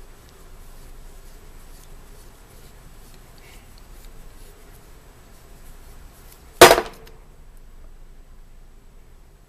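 A single sharp bang about two-thirds of the way in, over faint background noise.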